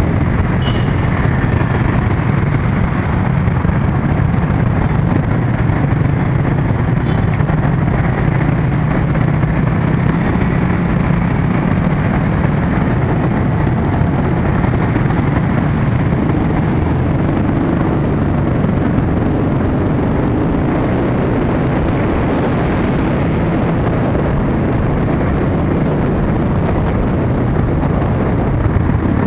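Continuous road-traffic noise of motor scooters and cars, heard from a vehicle moving among them, with a steady low engine hum underneath.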